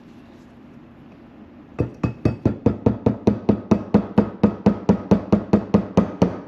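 Hammer blows driving a new wheel bearing race into a front hub, seating it. The blows start about two seconds in and keep up an even rhythm of about four a second.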